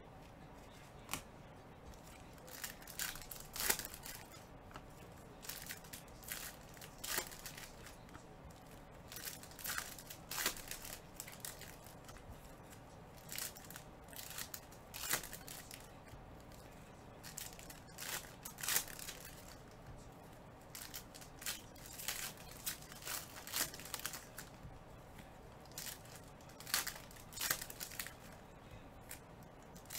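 Foil baseball-card pack wrappers being torn open and crinkled by hand, with the cards inside handled between them. The crackles and rustles come in irregular clusters, some louder snaps among them.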